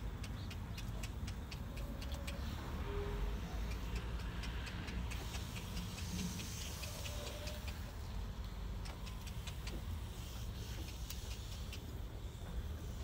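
Wind rumbling on the microphone, with a quick run of light, sharp ticks through the first several seconds and a few more near the end.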